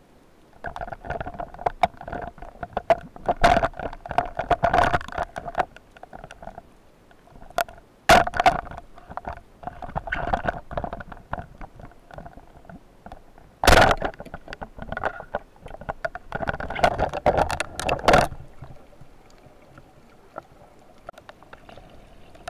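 Underwater handling noise picked up by a spearfisher's camera: bursts of rustling and scraping, with two sharp knocks about 8 and 14 seconds in.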